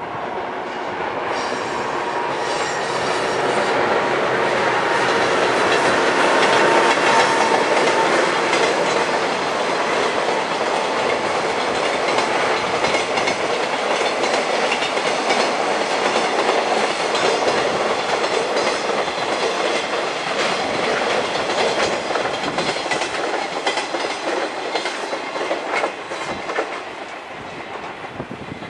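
A JR Freight EH200 electric locomotive passing at speed with its freight train, the wagons rattling rhythmically over the rail joints. A steady high tone rings through the first several seconds. The noise builds to its loudest in the first quarter, holds, then eases off near the end.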